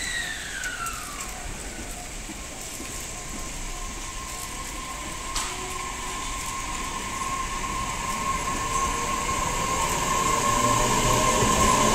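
Tobu 60000 series electric train pulling away from the platform. A short falling tone comes at the start, then a steady high whine from the traction equipment, with rising tones joining and the sound growing louder as the train picks up speed.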